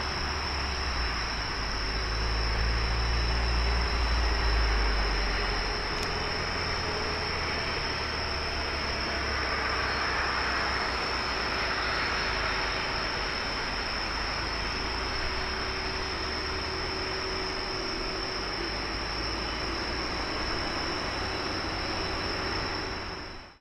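Boeing 737-400 freighter's CFM56 jet engines during the landing rollout. A deep rumble swells and peaks a few seconds in, then settles into a steady jet noise that thins to a distant hiss. The sound fades out abruptly near the end.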